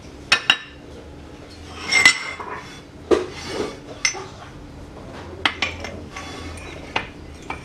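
Steel parts clinking and clattering as metal plates and a gear are handled and set down on the steel bed of a shop press: a string of separate sharp clinks, the loudest about two seconds in.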